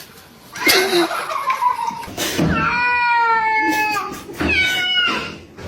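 A domestic cat yowling: three drawn-out calls, the middle one longest and held steady, the first and last sliding down in pitch.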